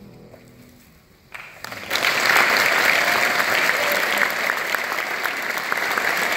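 An audience starts applauding after a brief lull, about a second and a half in. It builds within half a second to full, steady clapping that carries on.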